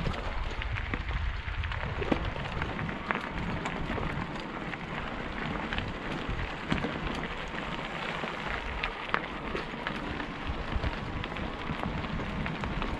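Mountain bike tyres rolling over a gravel dirt track: a steady gritty hiss with many small stone clicks and a low rumble from the bumpy ride.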